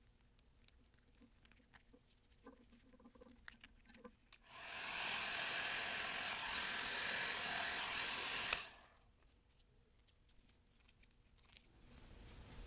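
Heat gun switched on and blowing steadily for about four seconds, shrinking solder-seal heat-shrink connectors over the wire joints, then switched off; light handling clicks and taps before and after.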